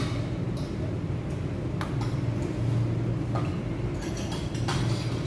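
Cutlery and plates clinking now and then during a meal at a restaurant table, a few scattered sharp clicks, over a steady low background hum.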